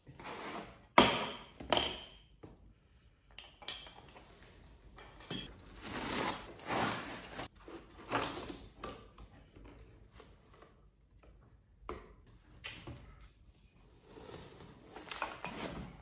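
Creality Ender 3 V2 3D printer parts being handled and lifted out of a foam-lined cardboard box: irregular rustling and scraping, with a few sharp knocks, the loudest about a second in.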